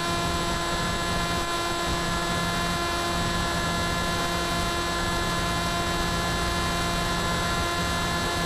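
Electric brushless motor and pusher propeller of an FX-61 Phantom flying wing running at steady cruise throttle: a steady whine at constant pitch, with air rushing over the airframe, heard from the onboard camera.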